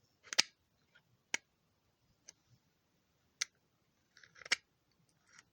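Scattered sharp clicks and light handling noises, about five over several seconds, as the parts of a disassembled angle grinder are handled.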